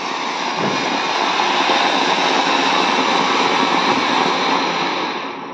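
Ground fountain firework (flower pot) spraying a tall column of sparks with a loud, steady hissing rush that begins to tail off near the end.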